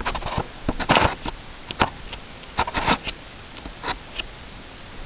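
Handling noise close to the microphone, as a camera is set down and adjusted on a dresser: a string of irregular knocks, clicks and short rustles, loudest about a second in, with another cluster near three seconds.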